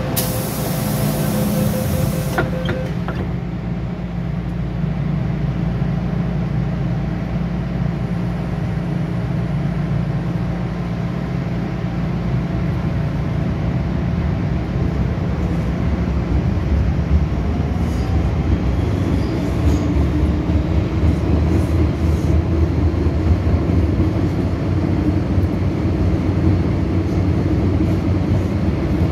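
Interior running noise of an MTR M-Train metro car at a station: a brief pulsing tone and burst of hiss in the first two seconds, then a steady hum. About halfway through, the traction noise grows louder with a faint rising whine as the train pulls away.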